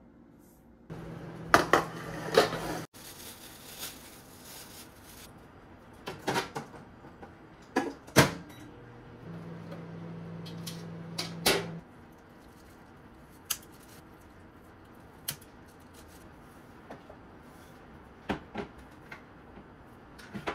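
Kitchen handling sounds: sharp clinks and knocks of stainless steel trays, a lid and bowls being picked up and set down. Twice a steady low hum runs for two or three seconds, the second stopping suddenly about twelve seconds in.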